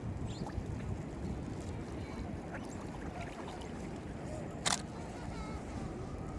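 Strong wind buffeting the microphone with a steady low rumble, with one sharp click about three-quarters of the way through.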